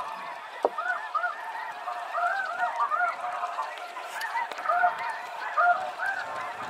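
A flock of snow geese calling, many short high-pitched honks overlapping in a continuous chorus. There is one brief knock a little over half a second in.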